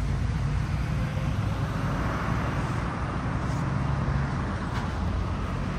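Steady road traffic noise: a continuous rumble of passing cars.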